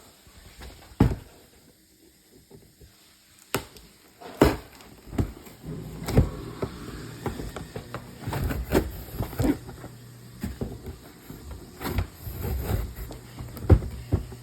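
Cardboard shipping box being cut open and handled: irregular knocks, taps and scraping, busier from about four seconds in.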